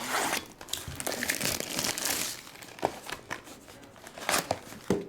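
Trading card packaging being opened: plastic wrapper crinkling and tearing for the first couple of seconds, then scattered short rustles and clicks as the cards and wrappers are handled.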